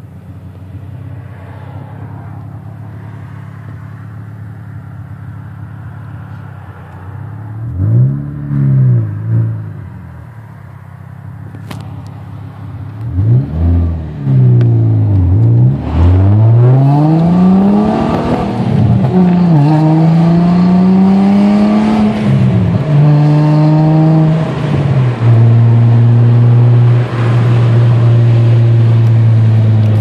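Audi A4 wagon with an aftermarket exhaust, heard from inside the cabin. It idles steadily, is blipped twice about eight seconds in and revved again a few seconds later, then pulls away hard. The exhaust note rises and drops back with each upshift, then settles to a steady cruise near the end.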